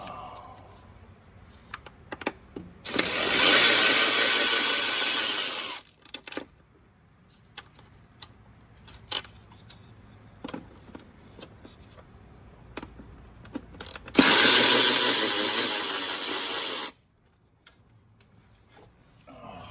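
Handheld power tool running in two bursts of about three seconds each, with scattered light clicks and knocks of tools and parts in between.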